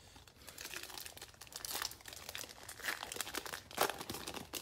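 Foil wrapper of a Donruss Optic football card pack being torn open and crinkled by hand, in irregular crackles.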